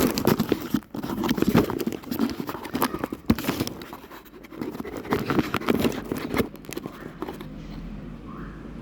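Handling noise from a phone being fixed in place: rubbing, scraping and knocks against its microphone, thinning out about six and a half seconds in.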